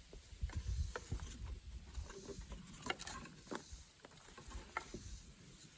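Faint, irregular small clicks and taps of hands working a plastic cable connector and its push-over weather seal, over a low handling rumble.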